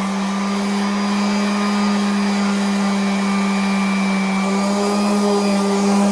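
Electric palm sander running steadily against the workbench edge, a constant motor hum over a sanding hiss.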